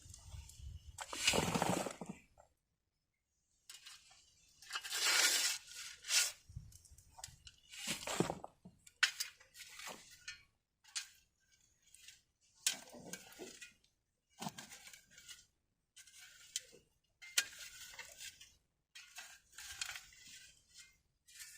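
Digging in rocky garden soil: a hand tool scraping through dirt in irregular strokes, with short sharp clinks of metal or stone striking rocks.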